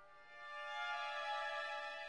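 Background music of sustained notes, swelling in after a brief dip in level at the start.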